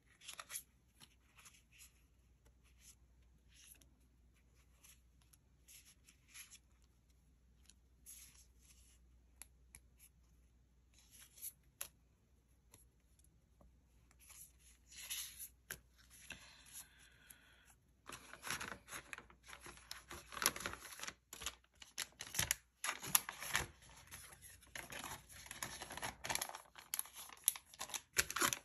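Paper sticker sheets and cards being handled and shuffled into a clear plastic pouch: scattered light rustles and taps at first, becoming a denser rustling and crinkling of paper and plastic in the second half.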